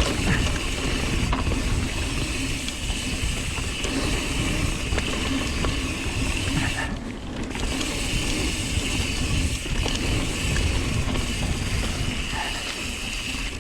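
Mountain bike riding down a dirt trail: tyres rolling over the ground and the rear hub's freewheel buzzing while coasting, with a heavy low rumble of wind on the action camera's microphone. The buzz stops for a moment about seven seconds in, then comes back.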